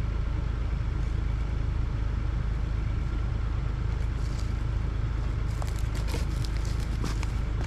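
An engine idling steadily with a low rumble; about five and a half seconds in, scattered sharp clicks and crackles start over it.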